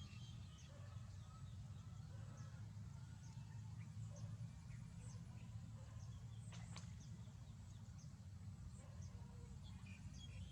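Small birds chirping faintly in short, scattered calls over a steady low rumble, with one sharp click about two-thirds of the way through.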